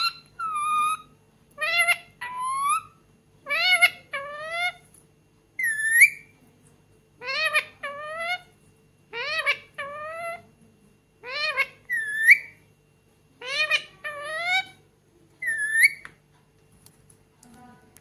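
Pet Indian ringneck parakeet calling in a run of two-part vocalisations, about one pair every two seconds, that stops near the end.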